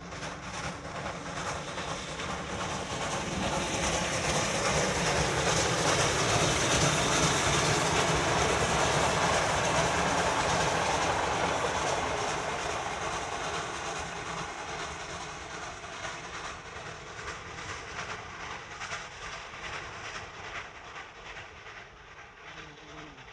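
Pt47 steam locomotive hauling a passenger train past at speed: the running noise of locomotive and carriages swells to its loudest about halfway through, with a fast rhythmic beat, then fades away as the train recedes.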